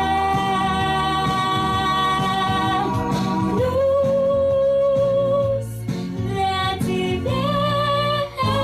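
A young girl singing a slow blues song over instrumental backing, holding long notes: a high note for about three seconds, then a lower one.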